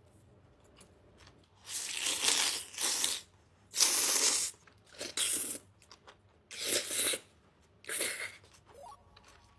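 Close-miked mukbang eating: a woman slurping noodles and chewing, in about five loud noisy bursts with short quiet gaps between them.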